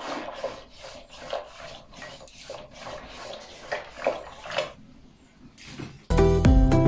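Wooden stirring stick spun between the palms in a steel pan of maize flour and water, giving rhythmic wet swishing and light scraping about three times a second as the mixture is worked to keep it from lumping. Music comes in loudly near the end.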